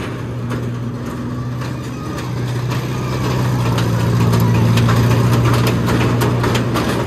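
A small fairground kiddie train ride running around its circular track. Its motor gives a steady low hum that grows louder about halfway through as the train comes close, with many short clicks over it.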